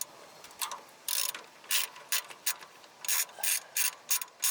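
Ratchet wrench clicking in about ten short, sharp runs as it is stroked back and forth, loosening a 10 mm bolt.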